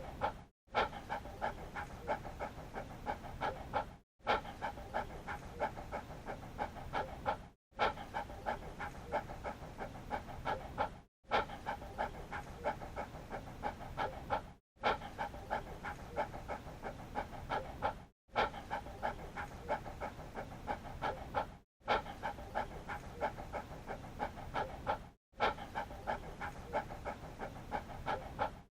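Dog panting in rapid, even breaths, repeated as a short loop with a brief silent gap about every three and a half seconds.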